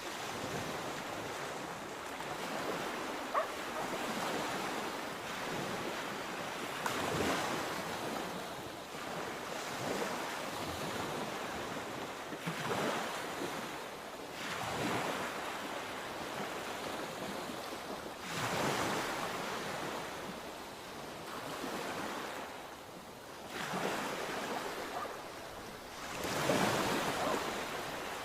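Sea waves breaking and washing up the shore, a surge every few seconds over a steady hiss of surf.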